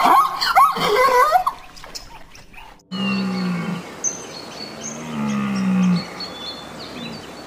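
Zebras giving short, high calls that bend sharply in pitch, for about a second and a half. After a brief lull, a deer gives two low, drawn-out calls, each falling slightly in pitch, with birds chirping in the background.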